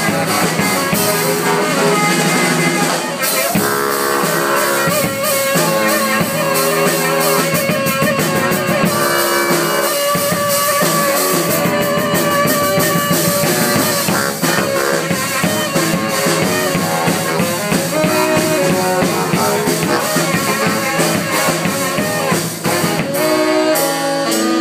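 Two saxophones and a drum kit playing a funk-style dance groove live, with the horns trading riffs over a steady beat.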